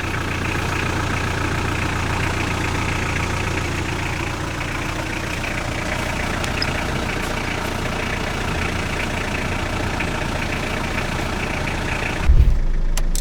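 Hyundai Porter light truck's engine idling steadily. A sudden thump comes near the end, after which the sound changes.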